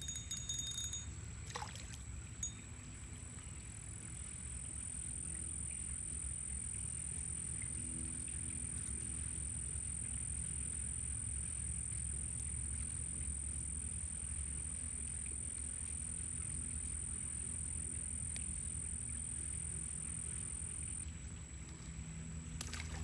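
Steady outdoor background noise: a low rumble with a constant thin high-pitched whine over it, and a single brief click about two seconds in.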